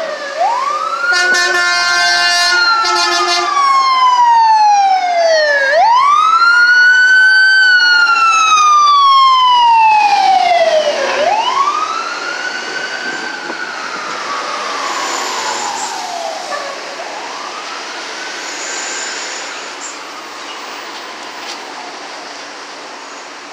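Sirens of a fire engine and a rescue ambulance on an emergency run, wailing in slow sweeps that rise and fall about every five seconds. A horn sounds for about two seconds near the start. The sirens fade as the vehicles draw away.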